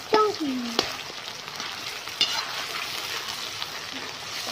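Chopped onions, green chillies and tomatoes sizzling in hot oil in an iron karahi, with a steady hiss. A metal spatula stirs and scrapes against the pan, giving a few sharp clicks near the start and about two seconds in.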